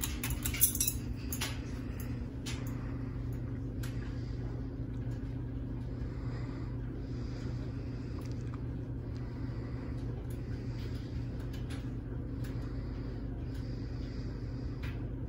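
A Hampton Bay Littleton 42-inch ceiling fan running with a steady motor hum, with a few light clinks in the first second and faint ticks now and then.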